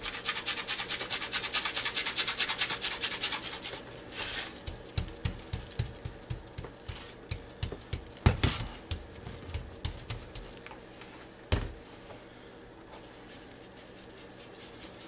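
Dry seasoning rattles out of a shaker jar, shaken fast for about four seconds. A gloved hand then pats and presses the seasoning into a raw beef roast with soft, irregular slaps, and there is a single knock near the end.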